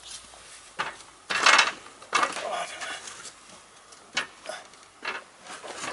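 A handful of sharp knocks and metallic clanks, the loudest about a second and a half in: feet on an aluminium ladder's rungs and a tree trunk knocking against a shed roof as it is shifted into place.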